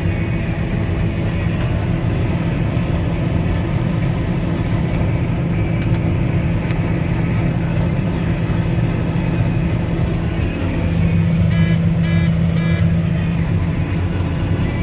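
Combine harvester running steadily with its unloading auger engaged. Three short electronic beeps sound near the end.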